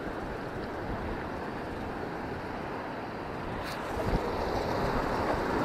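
Steady rush of surf breaking on rocks, with wind buffeting the microphone. A single short click sounds about two-thirds of the way through, and the rush grows a little louder near the end.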